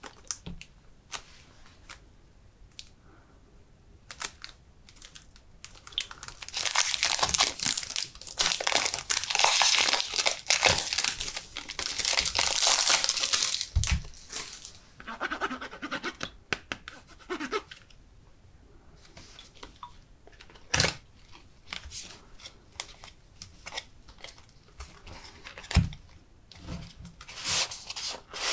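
Clear plastic wrap being torn and crinkled off a cardboard perfume box, loud for several seconds in the middle. Then comes quieter handling of the box: light taps, sharp clicks and card sliding as the box is opened.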